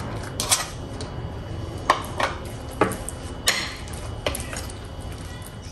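A white plastic spoon and a small pink plastic bowl knocking against a ceramic mixing bowl while thick batter is stirred, giving about six irregular clinks.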